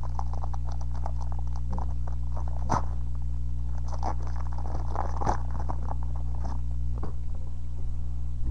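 Foil booster pack wrapper crinkling and tearing as it is pulled open by hand, in irregular clusters of crackles that thin out near the end, over a steady low hum.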